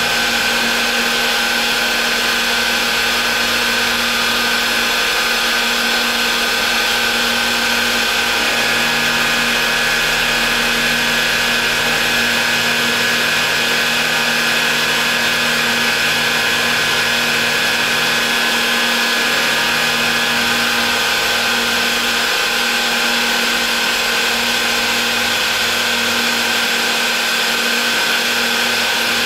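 Nomura NN-32YB2 CNC lathe machining a brass part: the spindle turns the bar while a tool cuts it, a steady machine whine with a constant high tone.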